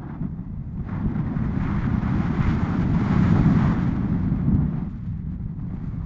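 Wind buffeting the microphone of a camera on a tandem paraglider in flight: a low, steady rush that swells with added hiss about a second in and eases near the end.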